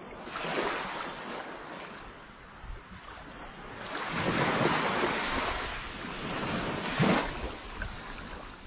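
Small waves washing up on a sandy beach, swelling once about half a second in and again, longer and louder, from about four seconds, with a short surge near seven seconds.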